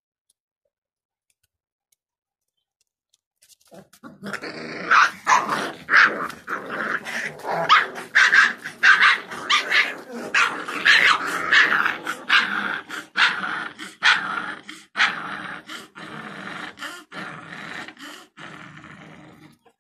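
Gultair puppies play-fighting, growling and yapping in quick short cries without let-up, starting about four seconds in after a quiet start and tailing off just before the end.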